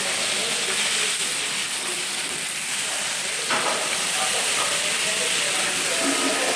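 Meat and fish fillets frying on a hot flat-top griddle: a steady sizzling hiss, with one short knock about halfway through.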